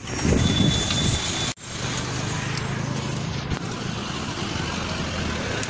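Road traffic noise: vehicles running along the highway with a steady low engine hum, broken by a brief gap about a second and a half in.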